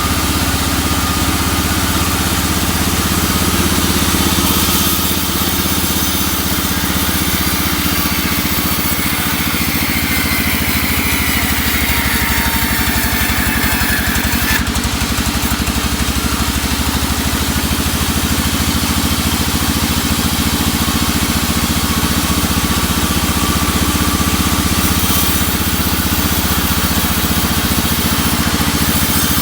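Sawmill machinery's engine running steadily. Partway through, a rising whine builds for a few seconds, then cuts off suddenly.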